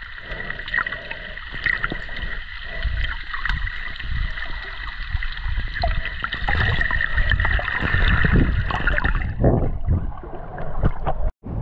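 Underwater sound through a camera's waterproof housing: muffled sloshing and gurgling of sea water with low rumbles and scattered small clicks. The sound thins out about nine seconds in.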